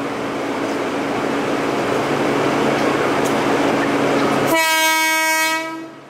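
Narrow-gauge train with a DL47 diesel locomotive: a steady rushing noise with a low engine hum, growing louder, then one train horn blast of about a second near the end.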